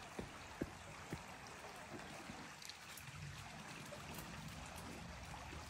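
Faint, steady burble of a shallow forest stream, with a few soft clicks in the first second or so.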